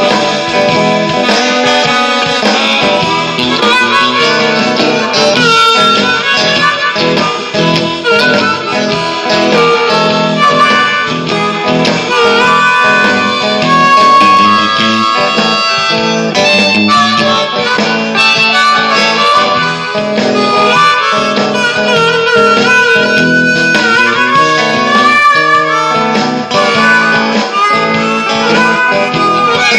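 Hohner Marine Band diatonic harmonica playing a bluesy freestyle line over Jackson guitar accompaniment, loud and continuous.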